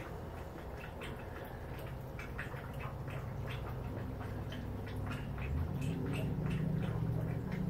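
A low steady hum that grows louder and a little higher about five seconds in, with scattered faint clicks and ticks over it.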